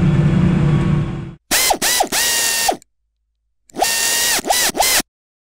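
Tractor engine running steadily, heard inside the cab, cut off about a second and a half in. Then a mechanical sound effect of ratcheting whirrs with swooping rising and falling tones plays in two bursts of just over a second each.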